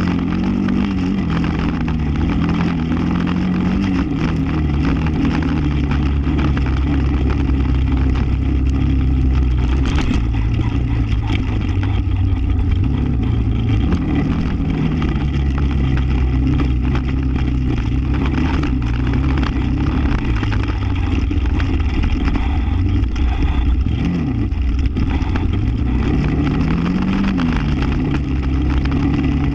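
ATV engine running as the quad is ridden along a grassy dirt trail, its note rising and falling with the throttle. A few seconds before the end it drops briefly, then climbs again.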